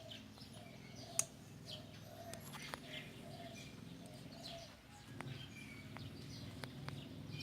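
Quiet background with faint bird chirps and a soft, evenly repeated cooing call, broken by a few small clicks; the brush cutter's engine is not running.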